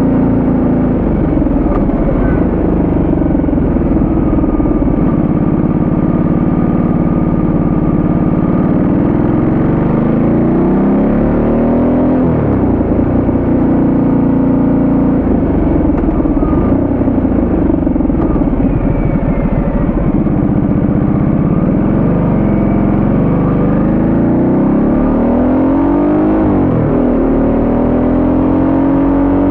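Ducati Multistrada 1200S V-twin engine under way, its pitch repeatedly dipping and climbing again as the throttle is closed and reopened through the bends, over a steady rush of wind.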